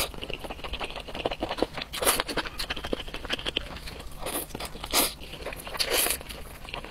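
Close-miked eating of roasted chicken: biting and chewing with irregular crunchy, crackling clicks.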